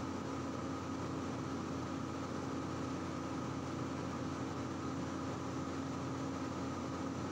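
Steady, unchanging hum and hiss with a few constant tones, with no clicks or knocks in it.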